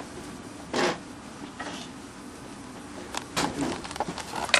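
Faint rustling and handling noise with a few short clicks and soft knocks, and one louder brief rush of sound about a second in.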